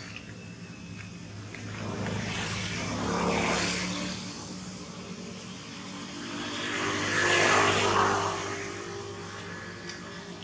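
Motor vehicle engines passing by, a low engine hum that swells and fades twice as two vehicles go past one after the other.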